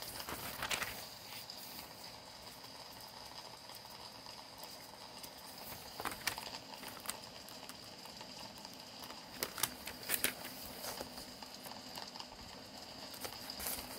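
Thin Bible pages being handled and turned by hand: scattered short paper crackles and rustles, a cluster near the start and several more in the second half, over a faint steady hiss.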